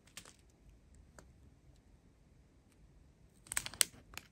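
Plastic packaging of a diamond-painting kit being handled: a few faint clicks, then a quick cluster of sharp, louder clicks and crinkles near the end.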